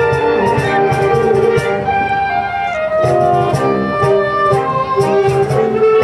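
Saxophone ensemble playing a Latin-style piece: sustained chords and a moving melody over percussion keeping a steady beat.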